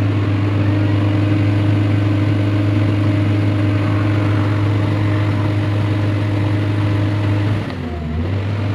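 Komatsu PW180 wheeled excavator's diesel engine running at a steady, even speed while the machine travels slowly, briefly dipping near the end. The travel speed stays slow in both high and low range, the fault being traced.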